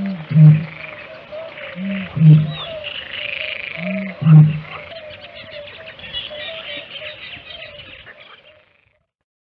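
Great bittern booming: three very low, hollow booms about two seconds apart, each led by a shorter, fainter note. A dense ambience of a steady warbling chorus and higher chatter runs beneath, and all sound cuts off about eight and a half seconds in.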